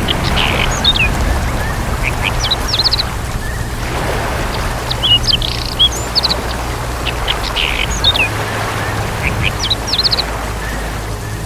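Birds calling: clusters of short, high chirps and whistles recurring about every two seconds, over a steady low rumble and hiss.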